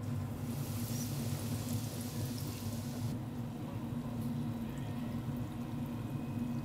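Panko-breaded pork cutlet (tonkatsu) sizzling loudly as it goes into hot deep-fryer oil, a bright hiss that starts about half a second in and drops away abruptly about three seconds in, leaving quieter bubbling. A steady low hum runs underneath.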